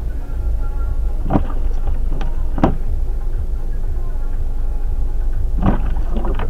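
Low, steady rumble of a car's engine and road noise heard inside the cabin, with a few short sharp knocks about a second and a half in, twice more shortly after, and twice near the end.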